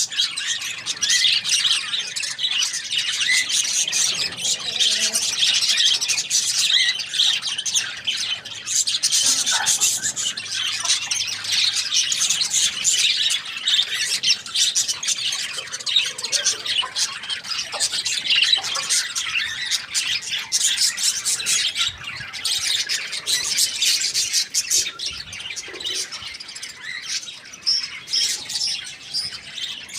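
Many birds chirping and squawking at once in a dense, continuous high-pitched chatter.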